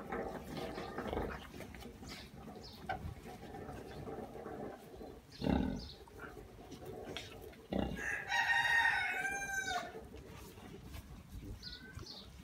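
Low grunting from a sow nursing a litter of suckling piglets, with a rooster crowing once for about two seconds about two-thirds of the way in, the loudest sound.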